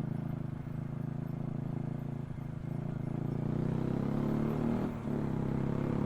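Motorcycle engine running while being ridden, a steady engine note that grows a little louder in the second half and dips briefly near the end.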